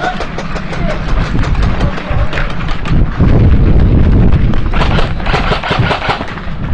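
Airsoft guns firing in quick runs of sharp cracks and clicks, heavier in the second half, over a loud rumble of wind and handling on a head-worn camera's microphone as the wearer moves, loudest a little past the middle.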